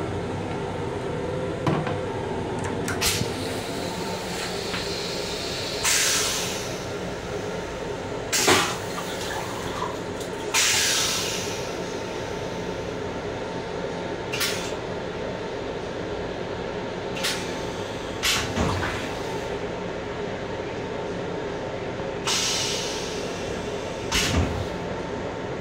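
Steady hum of an M7 commuter railcar heard inside its small restroom, with several held tones. Short bursts of rushing noise come every few seconds, about nine in all.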